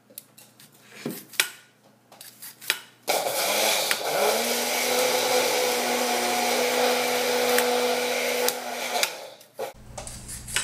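Electric blender grinding rolled oats into oat flour. The motor spins up about three seconds in, runs steadily for about six seconds and stops. A few short scrapes of a vegetable peeler on a sweet potato come before it.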